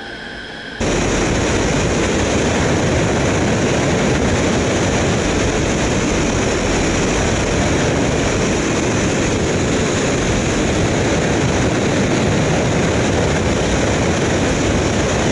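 Loud, steady rush of wind buffeting the microphone of a camera mounted outside a glider in flight, with no engine tone; it starts abruptly about a second in.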